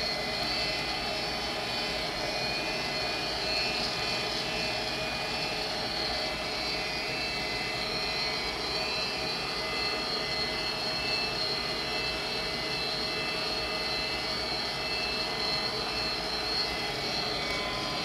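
Vintage Armstrong Air furnace running: a steady whir of its blower and inducer motor, with a few faint high whines held at one pitch.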